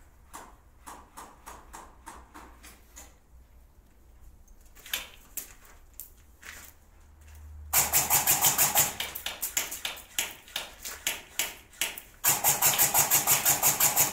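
Airsoft rifle firing on full auto: a long rapid burst of sharp shots about 8 seconds in, a few spaced shots, then a second long rapid burst from about 12 seconds in. Before the first burst there are only faint scattered clicks and pops.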